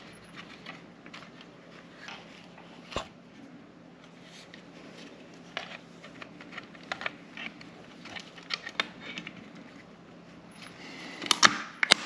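Scattered clicks and knocks of hard plastic parts being handled and pressed together as the housing of a J1772 EV charging handle is lined up to go back on, with a quick run of louder clacks near the end.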